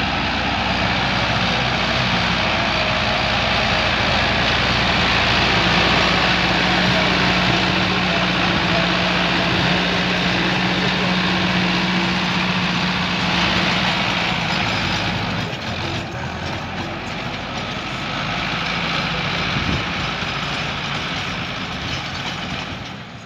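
Sonalika tractor's diesel engine running steadily under load while it drives a rear rotavator tilling dry soil. It grows quieter after about fifteen seconds as the tractor moves off across the field.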